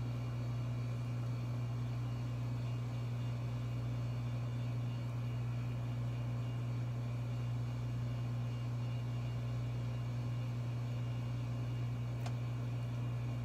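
Steady low machinery hum with a light hiss, unchanging throughout, and one faint tick near the end.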